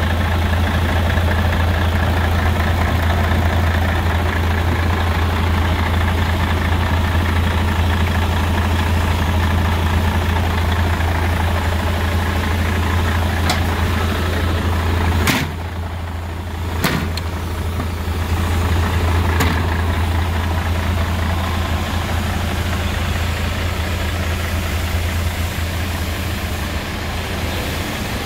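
Mercedes-Benz Actros 1843 tractor unit's V6 diesel engine idling steadily, with a couple of sharp clicks about halfway through.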